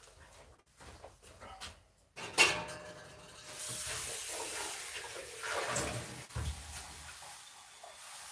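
Objects being handled and set down on a work surface: a few light clicks, a sharp knock about two seconds in, then several seconds of steady hissing with a couple of dull thuds.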